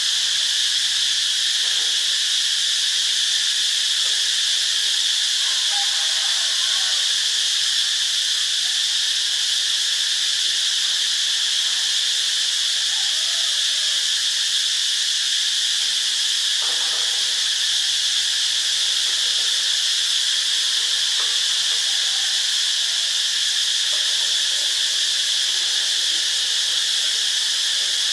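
Cicada singing: a loud, steady, unbroken high-pitched buzz that holds the same pitch and level.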